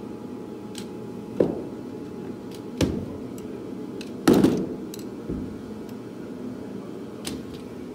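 A screwdriver knocking and prying wooden plugs out of a hole saw: about five sharp metal-and-wood knocks, the loudest a little past the middle, with a few lighter ticks between them, over a steady low hum.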